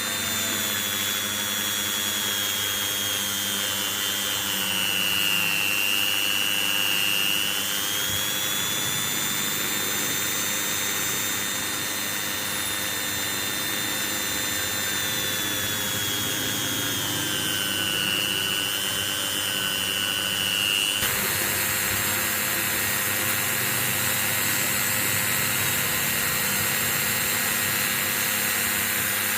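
Small high-speed electric motor whining steadily, its pitch sagging twice as it slows under load. The sound changes abruptly about two-thirds of the way through.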